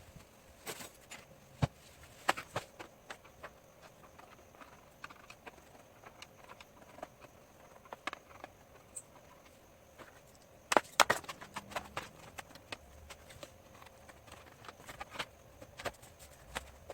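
A laptop being handled and worked on by hand, giving scattered sharp clicks and taps, with a quick cluster of louder clicks about eleven seconds in.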